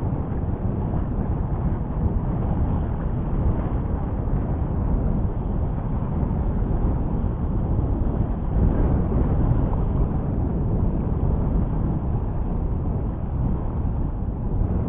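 Wind buffeting the microphone: a steady low rumble of wind noise.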